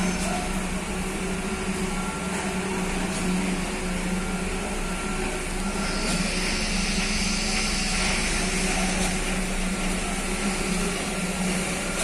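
Construction-site machinery engines running steadily: a continuous low drone with a thin constant whine above it.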